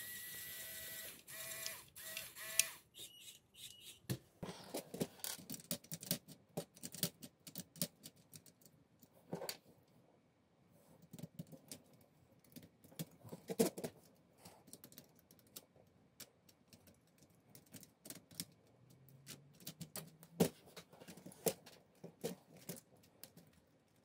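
Plastic LEGO Technic parts clicking and knocking as they are handled and fitted on the model, in scattered irregular clicks. A short steady whine sounds in the first three seconds, cutting out and restarting a few times.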